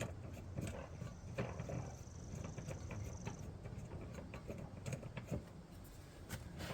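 Spare-tire hold-down being unscrewed by hand in a car's trunk: faint, scattered clicks and light rattling of the threaded hold-down bolt as it is turned.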